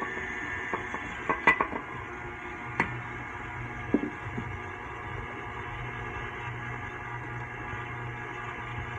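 KitchenAid Classic Plus stand mixer running steadily at its turned-up speed, the dough hook working bread dough as flour is added. A few sharp knocks in the first half.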